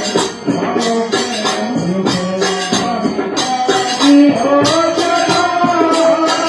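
Hindi devotional bhajan played live: harmonium melody over dholak drumming and jingling hand percussion keeping a steady beat, with a man's singing voice on top.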